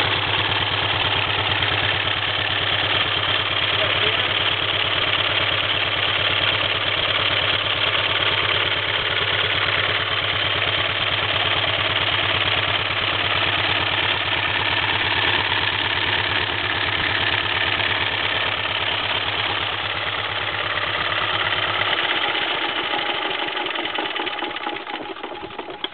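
A 1929 Ford Model A four-cylinder engine, opened up as a cutaway and firing on only its number-4 cylinder, running with a steady, even firing beat. Near the end it slows and dies away as the engine stops.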